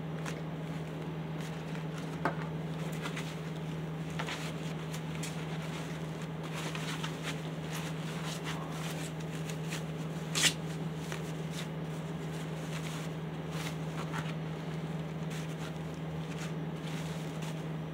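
Foam packing wrap rustling and crinkling as it is pulled apart and unfolded, with scattered crackles and a sharper crackle about ten seconds in. A steady low hum runs underneath.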